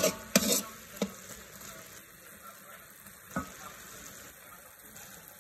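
Pork pieces sizzling in oil in a metal wok. A metal spatula clacks and scrapes against the wok several times in the first second and once more a little after three seconds.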